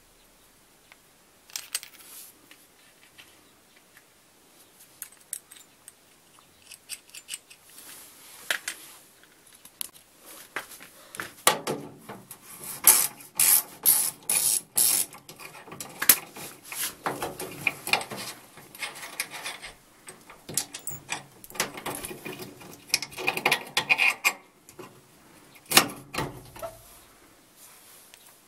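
Ratchet socket wrench clicking in quick runs as transport-lock bolts are undone from a 1988 Wiatka washing machine's cabinet, with scattered metal clinks of the bolts, washers and spacers being handled.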